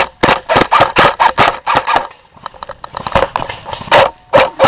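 Airsoft guns firing single shots in quick succession, several a second, with a lull of about a second near the middle.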